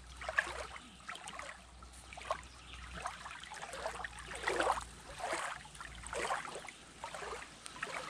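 Small waves lapping against the lake shore, in irregular splashes every half second to a second.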